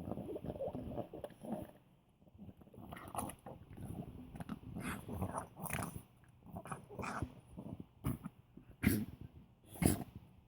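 Old poodle eating something tasty and making pig-like noises: a string of short, irregular sounds with a brief lull about two seconds in and two louder ones near the end.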